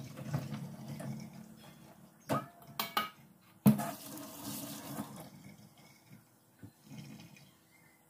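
Water draining and trickling in a stainless-steel sink, with a few sharp metal clanks of a steel bowl and mesh strainer against the sink between about two and four seconds in. Then a tap runs briefly over hands and the sound dies away.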